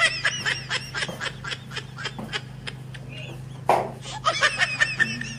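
Birds chirping in a quick, busy run of short high calls over a steady low hum, with one louder short sound a little past the middle.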